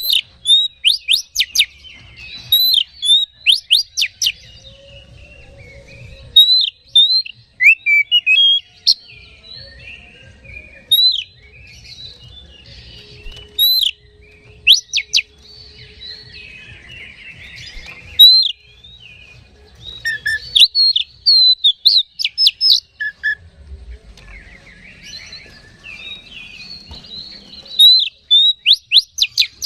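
Oriental magpie-robin (kacer) in excited full song: bursts of loud, rapid whistled notes that sweep steeply in pitch, alternating with softer scratchy chattering phrases.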